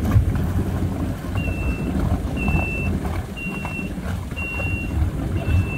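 Yamaha jet ski's engine running with a low rumble while it backs out in reverse. A high, steady warning beep sounds about once a second, five times.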